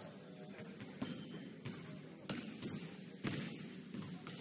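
A basketball being dribbled on a hardwood gym floor, bouncing about every two-thirds of a second, over a low murmur of the gym.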